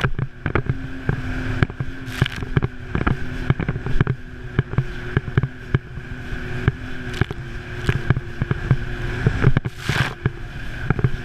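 Sea-Doo jet ski engine running at a steady speed, heard through the camera's waterproof case, with frequent sharp knocks and slaps as the hull hits the chop.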